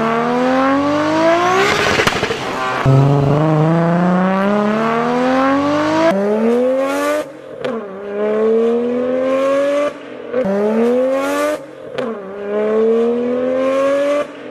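Nissan Skyline GT-R R32's twin-turbo straight-six accelerating hard through the gears. The engine note climbs steadily in each gear and drops back at about four upshifts, with short bursts of hiss around the shifts.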